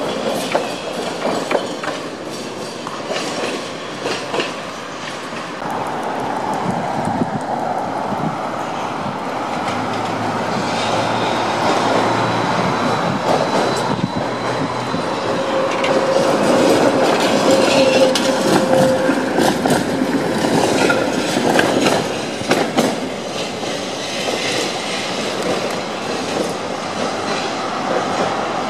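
Trams running along street track: wheels clacking over rail joints and a rumbling run, with a steady whine for a few seconds midway.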